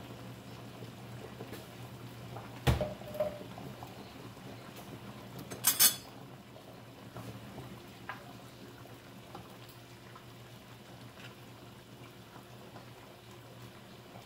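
Kitchen utensils and cookware knocking and clinking around the stove: a sharp knock about three seconds in and a brighter metallic clatter near six seconds, then a few faint clicks over a low steady hum.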